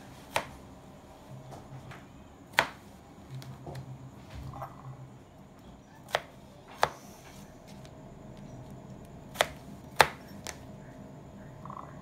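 Chef's knife slicing vegetables and striking a bamboo cutting board: six sharp separate knocks at uneven intervals, a second or more apart.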